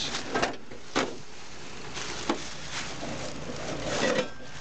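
A few sharp knocks and clatters, with a busier cluster near the end, as the cracked plastic hood of a garden tractor is handled, mixed with rustling and crunching of dry leaves and twigs underfoot.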